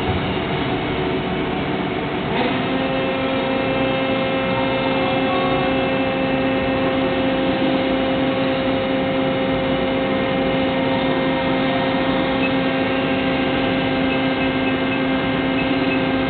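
Injection moulding machine running with its mould clamped shut: a steady mechanical hum, joined about two seconds in by a steady whine at two pitches that holds until near the end, as the machine works through a stage of its moulding cycle.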